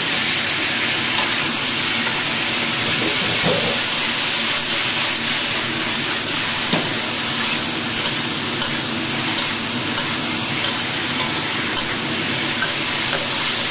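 Beef strips, mushrooms and red pepper sizzling steadily as they are stir-fried in a wok, the spatula scraping and knocking against the pan as the food is stirred and tossed.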